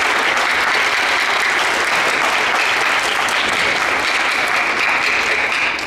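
An audience of students clapping steadily in a school auditorium, the applause cutting off sharply near the end.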